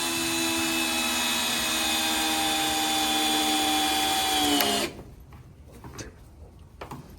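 Power drill running at a steady high-pitched whine for nearly five seconds, then slowing slightly and stopping, followed by a few faint knocks.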